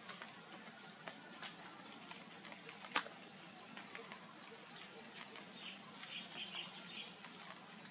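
Faint outdoor ambience of insects humming steadily at a high pitch, with scattered small clicks, a sharp one about three seconds in, and a short run of quick chirps near the end.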